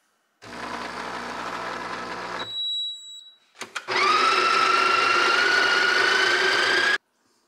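Breville espresso machine with built-in burr grinder. A low machine hum runs for about two seconds, then a short high beep and a couple of clicks. The grinder then runs for about three seconds, its whine rising slowly, and cuts off sharply.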